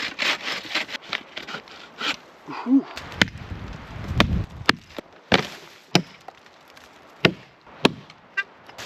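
Sawing a dry fallen spruce with rhythmic back-and-forth strokes for the first couple of seconds. Then a series of about seven sharp, irregular knocks of wood on wood.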